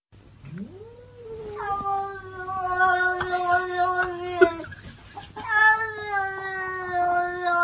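A domestic cat yowling in two long, drawn-out calls. The first rises at the start, then holds with a slowly sinking pitch for about four seconds; the second starts after a short gap a little past the middle and is still going at the end.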